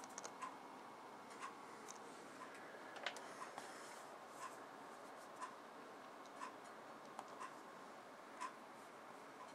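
A clock ticking faintly and evenly, about once a second, over quiet room hiss, with a few other light clicks, the sharpest about three seconds in.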